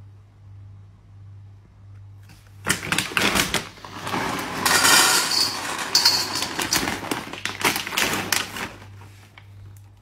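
Dry kibble poured from a bag into a stainless steel dog bowl, a dense rattling clatter. It starts about three seconds in, builds, and tapers off near the end.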